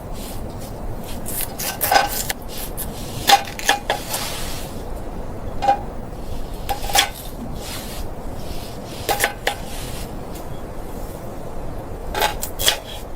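Metal cookware clinking: about ten scattered light clinks with a short ring, over a steady low rushing noise.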